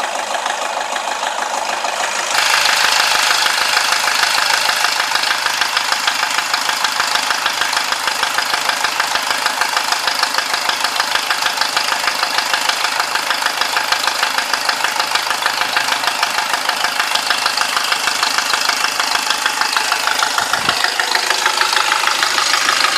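SsangYong Kyron engine idling steadily with an even, rapid clatter. The sound gets louder and brighter about two seconds in.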